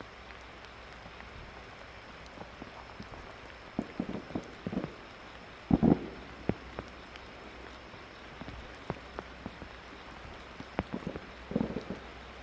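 Rain falling steadily, with scattered drop taps and a few dull thumps, the loudest about six seconds in.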